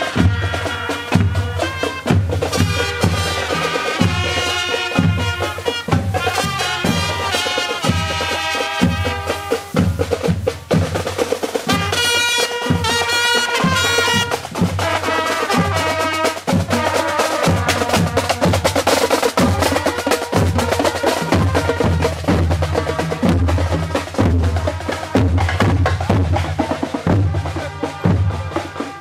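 Marching band playing a march as it parades by: trumpets carry the melody over snare drums and a bass drum beating a steady marching rhythm. The trumpets are plainest in the first half; later the drums dominate.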